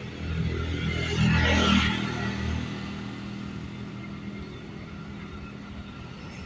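Road traffic: a vehicle passes close by with an engine rumble and a rush of tyre and engine noise, loudest from about one to two and a half seconds in, then fades. A low, steady engine rumble from approaching traffic continues.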